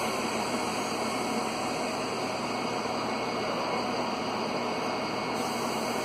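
Brastemp BWS15 top-load washing machine running with a steady, even rushing noise, working again after its pressure switch was replaced.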